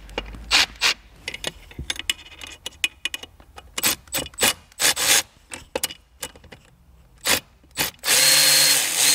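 Scattered clicks and light knocks of a socket and extension being fitted and worked on a parking brake cable nut. About eight seconds in, a cordless power tool starts spinning the nut off with a steady whir.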